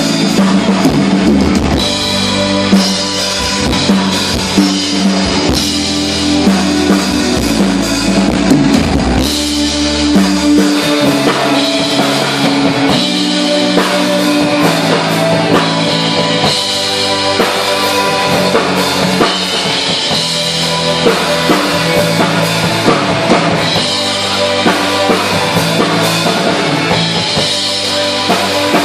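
Live amplified rock band playing: drum kit, electric guitars and keyboard. Heavy deep bass through the first ten seconds or so, then it drops away and the drums and guitars carry on.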